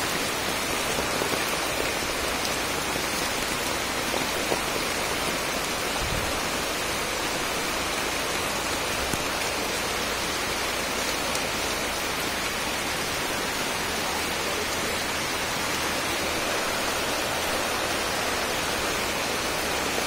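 Heavy rain pouring steadily onto forest leaves and shallow running floodwater, a dense, even hiss with no let-up.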